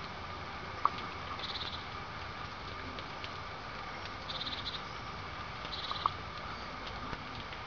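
Small animal calls: three short buzzing trills and two sharp single chips, over a steady faint hum.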